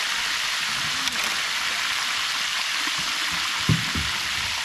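Fish frying in hot oil in a pan: a steady sizzling hiss, with a brief low knock near the end.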